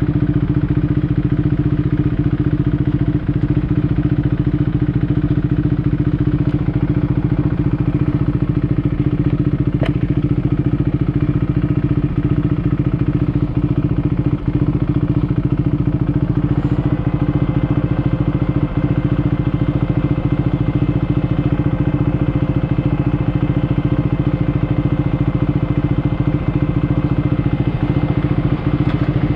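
Husqvarna Svartpilen 401's single-cylinder engine idling steadily through an aftermarket SC Project exhaust while the bike waits in traffic. A fainter steady higher hum joins about halfway through.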